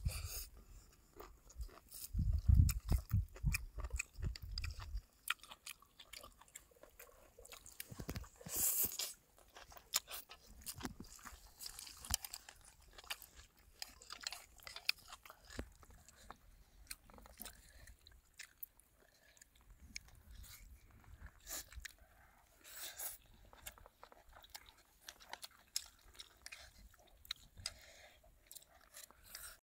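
Close-up sounds of a person eating spicy seafood noodles with vegetables, mushrooms and meatballs: chewing and crunching with many small clicks. A run of deep thuds comes in the first few seconds.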